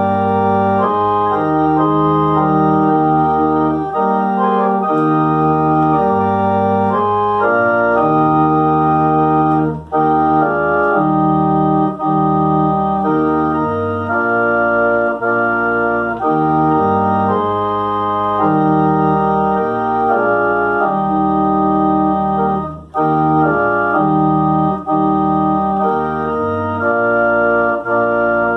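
Organ music: slow, held chords that change every second or so, with two brief breaks between phrases.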